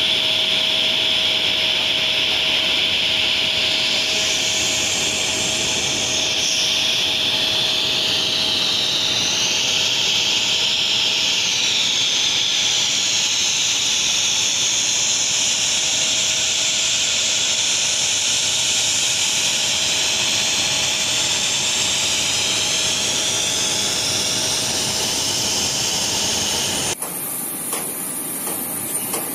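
Jet aircraft engine running on the apron: a steady high whine and hiss with a faint underlying tone, its pitch bands slowly drifting. Near the end the sound cuts abruptly to a quieter, thinner hiss.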